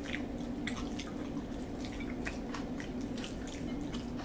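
Two people eating noodles with their fingers: scattered small wet clicks and smacks of chewing and lips, over a steady low hum.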